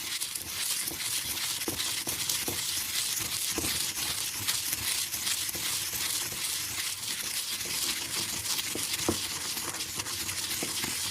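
Food frying in a hot pan: a steady sizzle with fine crackles and occasional louder pops of spitting fat.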